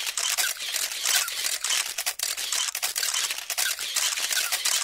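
Camera shutter firing in a rapid, continuous burst: a dense stream of sharp clicks.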